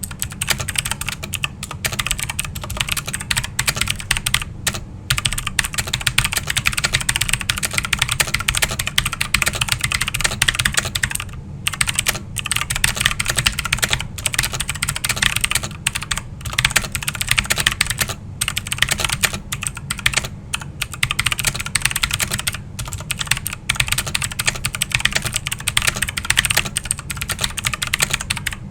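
Continuous fast typing on a Redragon K552 mechanical keyboard with clicky Outemu Blue switches and SteelSeries Apex Pro stock keycaps: a dense run of sharp key clicks with a few brief pauses, over a steady low hum.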